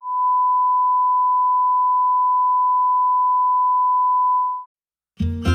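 A single steady electronic beep tone, a pure pitch near 1 kHz, held for about four and a half seconds and then cut off sharply. After a brief silence, guitar music starts near the end.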